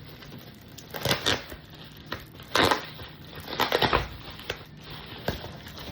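Packaging being handled: a few short rustling, crinkling bursts and a couple of sharp clicks as a Scentsy wax bar is brought out of its wrapping.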